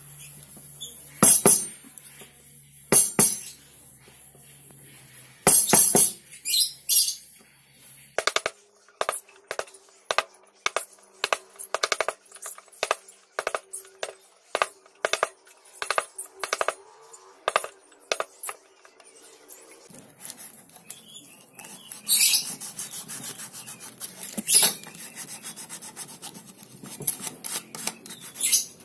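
Hand-carving wood with a steel chisel: a few sharp knocks, then a run of evenly spaced sharp clicks, about one and a half a second, as the chisel cuts notches into a wooden rail. About twenty seconds in this gives way to the steady scraping of a small blade shaving the wood, with a few louder scrapes.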